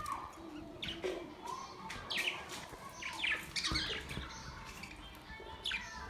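A flock of budgerigars chirping and chattering: many short, sharp, falling chirps overlapping, busiest in the middle.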